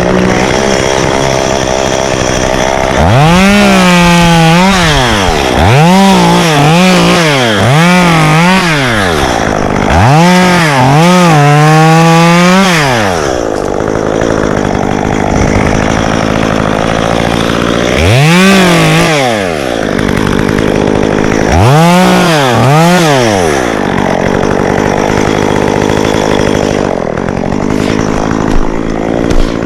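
Two-stroke chainsaw revving up to full throttle and falling back to idle again and again, in six bursts of one to three seconds, idling in between and near the end.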